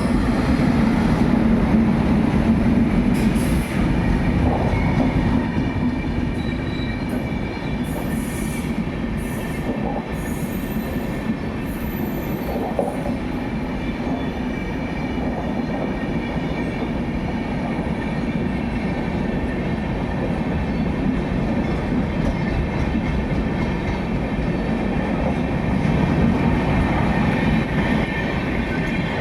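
Passenger train hauled by a WAP7 electric locomotive rolling past, a steady rumble of wheels on rail. Short high-pitched squeals come in about ten to thirteen seconds in.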